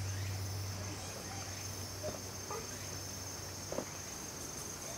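An insect trilling, one steady high-pitched note held without a break, over a low steady hum that drops away about four seconds in.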